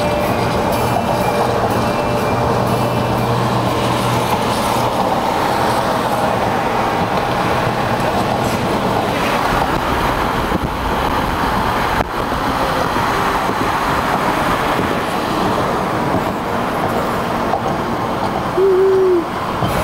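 Steady road and wind noise of a car driving at speed among traffic, with a low hum in the first few seconds. Near the end comes a brief pitched sound, the loudest moment, dropping in pitch as it stops.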